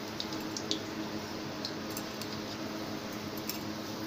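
Balushahi dough rounds frying in gently heated oil on a low flame: a steady soft sizzle with small sharp crackles scattered through it, over a faint steady hum.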